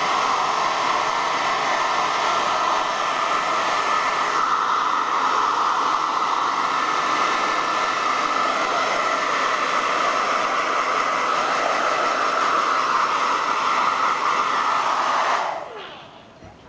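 Hair dryer blowing steadily, switched off near the end, its motor winding down with a falling whine.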